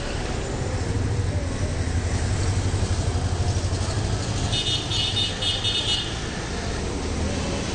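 Street traffic: a motor vehicle's engine running nearby with a low hum, and about halfway through a high-pitched horn or bell sounding in a few quick pulses.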